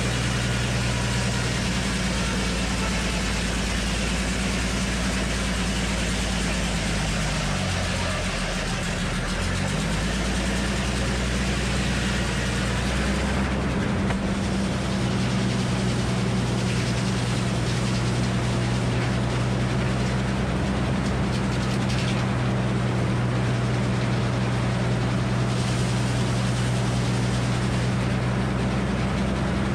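Frick circular sawmill running: the power unit's engine drones steadily while the big circular blade cuts through a red oak log, the engine pitch sagging briefly under load about eight seconds in. The cutting hiss ends about halfway through, leaving the engine and the freely spinning blade running on.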